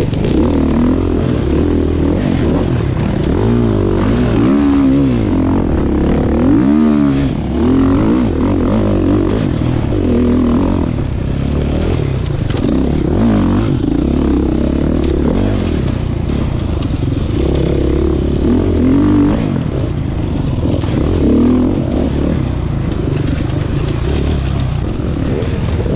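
A GasGas MC 450F dirt bike's single-cylinder four-stroke engine being ridden hard off-road, its pitch rising and falling again and again as the throttle is opened and closed.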